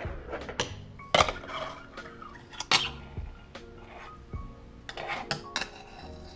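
Fingerboard clacking on a granite ledge and stone tabletop: several sharp, irregular clacks of its wheels, trucks and deck as tricks are tried, the loudest about a second in and just before three seconds, with brief rolling between.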